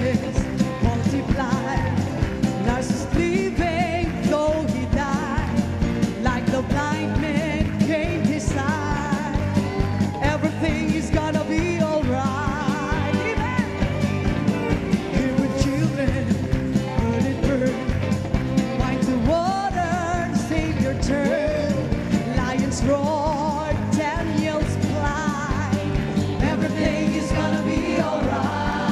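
Worship song with a band and singing voices over a steady drum beat.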